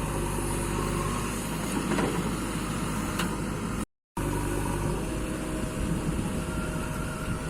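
Engine of heavy construction machinery running steadily with a low rumble. It breaks off to dead silence for a moment about four seconds in, then resumes.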